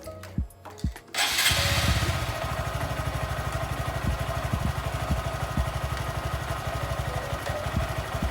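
Honda Grom's 125 cc single-cylinder four-stroke engine starting about a second in, briefly running louder, then settling into a steady idle.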